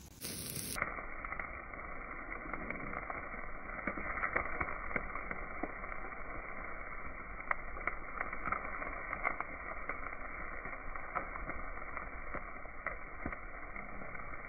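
Wood campfire crackling under roasting skewered chicken wings: a steady hiss with scattered sharp pops, sounding dull and thin as if through a radio. It starts just under a second in.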